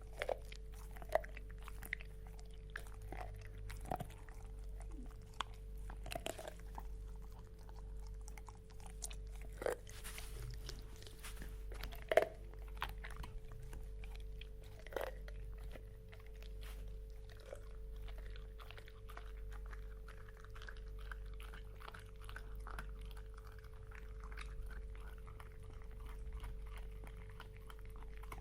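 A dog chewing bones: irregular sharp cracks and crunches, with tongue and mouth sounds between them. A steady hum runs underneath.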